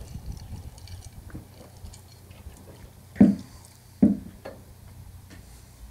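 Small clicks and handling noises of a screw being driven by hand into the bottom edge of a pickup's grille, with two dull knocks a little under a second apart about three and four seconds in.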